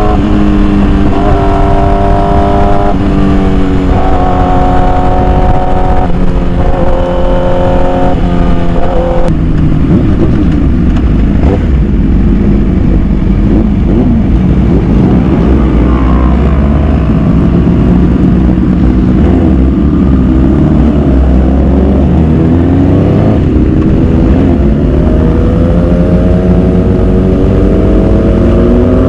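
Motorcycle engine at speed, its note held and changing in steps over the first nine seconds like gear changes, then mostly buried under heavy wind rumble on the rider's microphone. Near the end the engine note rises again as the bike accelerates.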